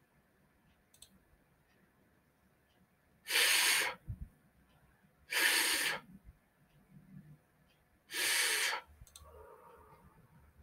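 A person's voice pronouncing the English 'f' sound three times, each a held, breathy hiss of about half a second, about two to three seconds apart.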